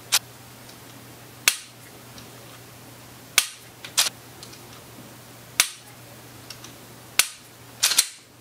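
An unloaded semi-automatic pistol being dry-fired over and over: sharp clicks of the trigger breaking and the action being reset, one every second or two, with a quick cluster of clicks near the end.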